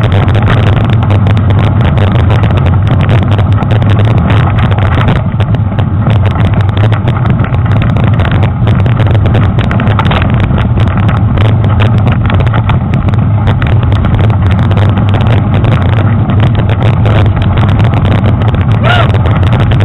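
Steady loud rumble of wind and trail vibration picked up by a handlebar-mounted action camera on a mountain bike rolling along a dirt trail, with constant small rattling knocks. A short pitched squeak rises and falls near the end.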